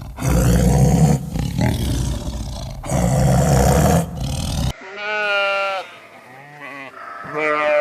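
A big cat roaring: two long, rough roars about three seconds apart. It cuts off sharply just past the middle and gives way to three wavering bleats, the last near the end.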